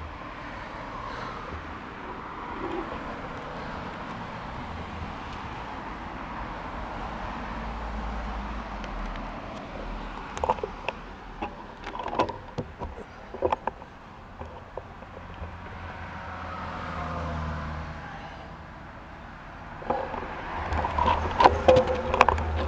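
Cars passing on a road, their tyre and engine noise swelling and fading one after another, with a few sharp clicks partway through. Near the end the noise grows louder, with knocks and rattles as the bicycle moves off onto the road.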